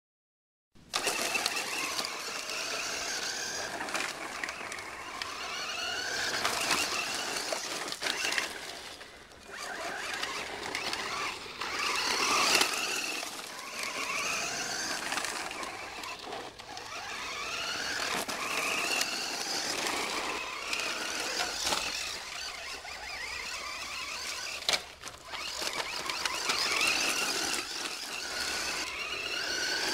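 Twin electric motors of a Nikko New Super Dictator 1/8-scale RC buggy whining, the pitch rising and falling again and again as it speeds up and slows, starting about a second in. Under the whine, a steady hiss that fits the tyres crunching over gravel.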